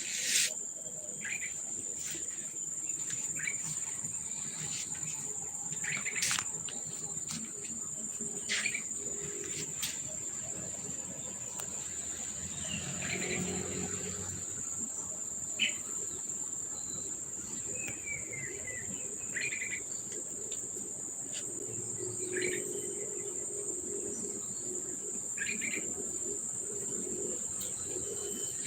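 Steady high-pitched insect trill running throughout, with scattered short chirps from birds.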